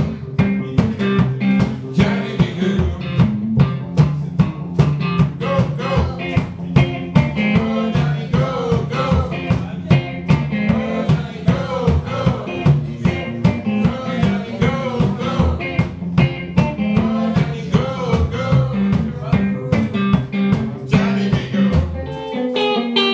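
Live blues played on electric guitar and a washtub bass, the bass thumping out a walking line under a steady rhythmic beat. The bass drops out about a second before the end.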